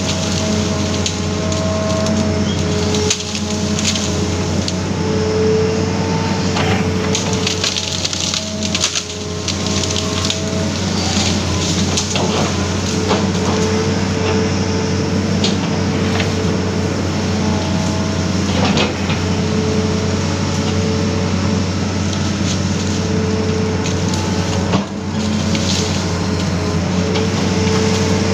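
Amphibious excavator's engine running steadily under load, with a whine that comes and goes as the arm and bucket move, and wood cracking and snapping as the bucket crushes and drags felled branches.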